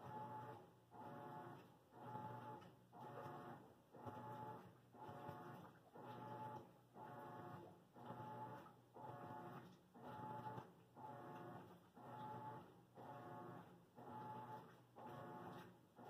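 Faint machine hum that swells and fades in a regular rhythm, about once a second.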